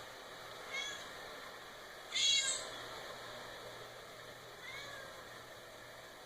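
Cat meowing three times over a steady hiss: a short meow about a second in, a louder, higher one about two seconds in, and a faint one near the five-second mark.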